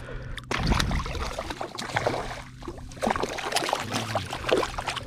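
Water splashing and sloshing in irregular sharp bursts as a hooked speckled trout is brought to the surface and landed, over a steady low hum.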